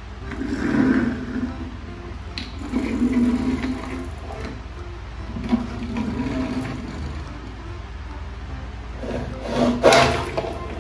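Small plastic toy cars pushed by hand across a wooden board, their wheels rolling and scraping in several separate passes. A louder burst of noise comes near the end.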